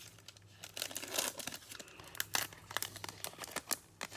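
Trading card packs and cards being handled: wrappers crinkling and cards rustling in short, irregular rustles, over a faint steady low hum.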